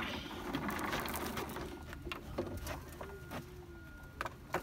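Sand from a playground sand-crane bucket rushes down a chute for about a second and a half. A few sharp knocks follow.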